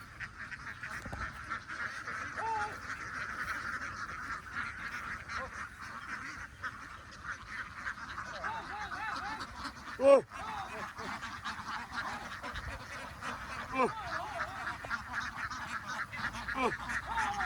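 A large flock of ducks quacking in a continuous dense chatter, with louder single calls standing out now and then, the loudest a sharp call about ten seconds in.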